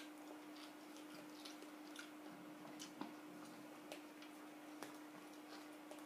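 Near silence: a faint steady hum with a few soft clicks and ticks scattered through it, the small noises of eating sticky rice by hand from a bamboo basket and chewing.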